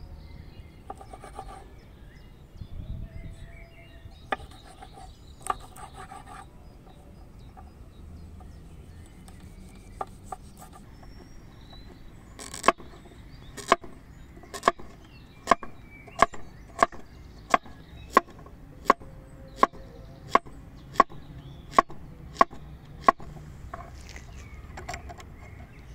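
A large chef's knife chopping a carrot into rounds on a wooden cutting board: about fifteen sharp, evenly spaced knocks, roughly one and a half a second, starting about halfway through. A few scattered knife knocks come before them.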